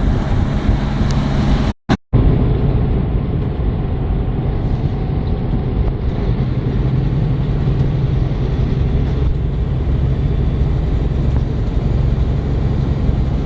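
Semi-truck's diesel engine and road noise heard inside the cab while driving at a steady pace, with a low steady drone. The sound cuts out briefly about two seconds in.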